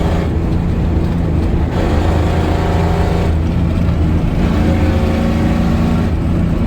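Ford 6.9-litre IDI V8 diesel under way, its exhaust swelling and dropping twice as the throttle is floored and released, the test for bucking on let-off that points to a stuck injection-pump metering rod.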